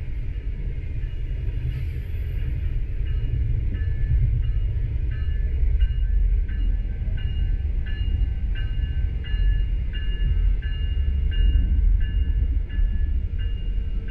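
Heavy low rumble of trains rolling past close by. About three seconds in, an Amtrak GE P42 diesel locomotive's bell starts ringing steadily, about one and a half strokes a second, as the locomotive rolls slowly into the station.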